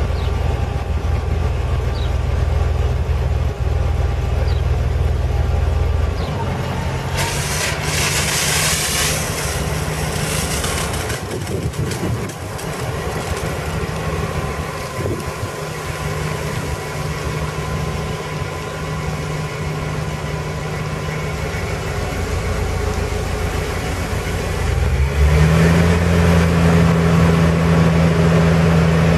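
1971 Ford fire truck's 361 cubic-inch V8 gas engine running steadily while it drives the truck's PTO water pump. About six seconds in its note changes and a hiss follows for a few seconds. About 25 seconds in the engine revs up and runs louder and higher as the hose sprays water.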